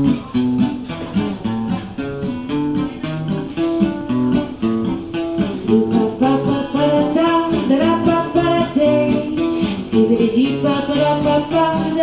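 Live acoustic guitar playing continuously in an instrumental break of a song.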